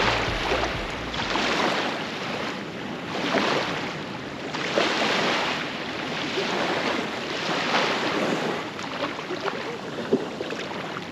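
Small waves breaking and washing up a sandy beach, the surf swelling and easing every second or two, with some wind on the microphone.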